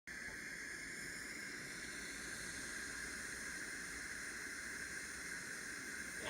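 Steam iron giving off a steady, even hiss of steam, cut off suddenly at the end.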